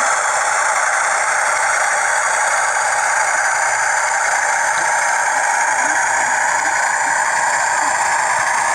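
TTS sound decoder in a Bachmann OO gauge Class 40 model diesel locomotive playing its engine sound as the model runs: a steady, thin engine drone with no bass, which the owner blames on the standard 8-ohm speaker.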